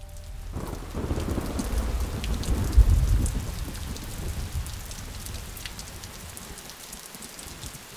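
Steady rain falling, with a low roll of thunder that swells from about half a second in, is loudest around three seconds and dies away.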